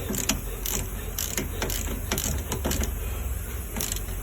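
Ratchet wrench clicking in short, irregular runs as the brake caliper bolts are turned and tightened.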